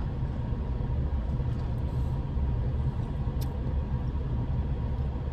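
Steady low rumble inside a car cabin from the idling car's running engine, with a faint steady hum and no change throughout.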